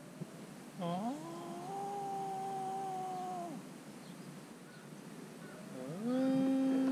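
Siberian husky puppy howling: two long howls, each sliding up in pitch and then held steady, the second starting near the end.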